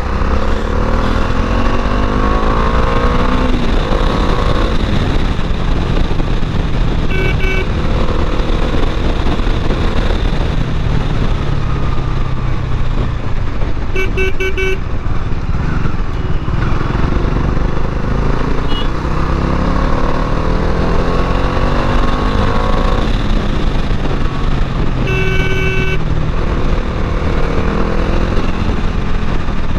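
Bajaj Dominar 400's single-cylinder engine running under way, rising in pitch as it accelerates near the start and again about two-thirds of the way through. Short vehicle horn honks sound three times.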